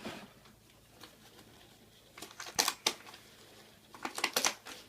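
Window shades being handled as they are fitted, giving two short bursts of clicking and rattling, the second near the end.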